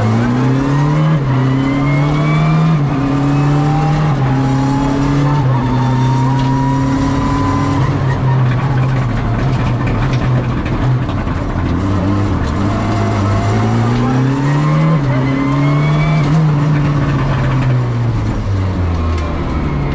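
Rally car's engine heard from inside the cockpit, revving hard and climbing through the gears with a drop in pitch at each upshift. About eight seconds in it eases off, then pulls up through the gears again.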